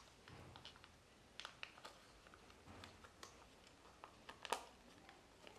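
Faint crinkling and rustling of a small folded paper toy leaflet being unfolded by hand, with scattered light crackles; the sharpest crackle comes about four and a half seconds in.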